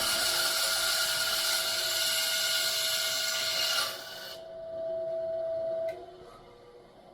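A power tool cutting slices into the die-cast metal suitcase weights of a toy tractor, a steady hissing cut with a high whine. The cutting noise drops away about four seconds in; the whine carries on and stops about six seconds in, followed by a couple of faint clicks.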